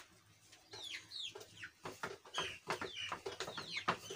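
Domestic chicks peeping over and over: short high chirps that each fall in pitch, a few every second.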